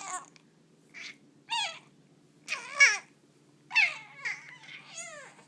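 A baby babbling and cooing in several short, high-pitched vocal sounds with pauses between them.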